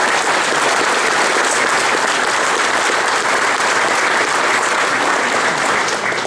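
A large crowd applauding steadily, a dense patter of many hands clapping, thinning out at the very end.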